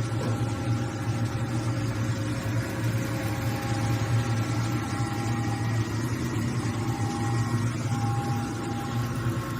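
Large CNC metal spinning lathe running under power, a steady low machine hum with a thin whine above it that fades out and returns a few times.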